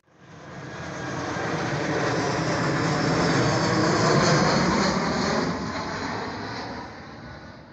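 Jet aircraft passing by: a rushing roar that swells up over about two seconds, holds, then fades away.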